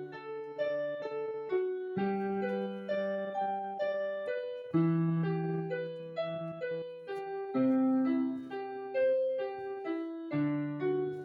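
Background piano music: a steady run of single notes over held bass notes that change every couple of seconds.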